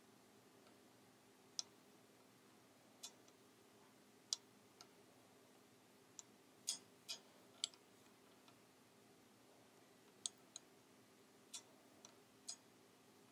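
Knitting needles clicking faintly against each other at irregular intervals as stitches are slipped one by one from the working needle onto a spare needle. A faint steady low hum sits under the clicks.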